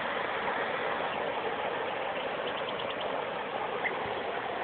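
Steady rush of river water running fast over a shallow, rocky riffle.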